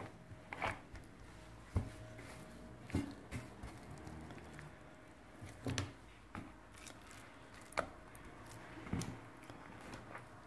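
Faint kitchen handling as a veal cutlet is dipped and pressed into beaten egg in a ceramic bowl: a few scattered soft knocks and taps at irregular intervals, over a faint steady hum.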